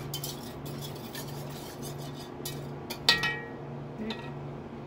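Metal wire whisk stirring a thick gravy-and-flour mixture in an enamelled pot, its wires scraping and clicking against the pot. About three seconds in comes one loud ringing clank as the whisk is knocked against the pot's rim.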